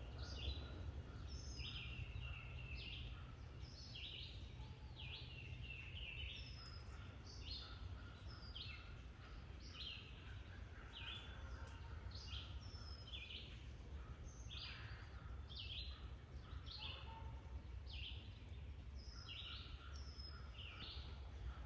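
Songbirds singing outdoors: a continuous run of short, high notes, each falling in pitch, over a steady low background rumble.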